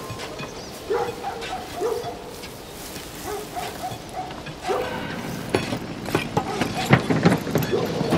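A dog barking several times, about once a second. In the second half come sharp knocks and metallic clatter.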